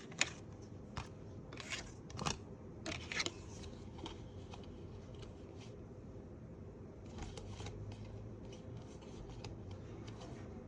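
A deck of cards being shuffled by hand: a few sharp riffling bursts in the first three seconds or so, then a run of softer, quicker card ticks.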